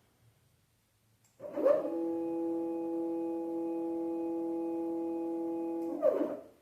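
CNC lathe axis stepper motor jogging: a whine that rises in pitch as it speeds up about a second and a half in, holds one steady pitch for about four seconds, then falls as it slows to a stop near the end.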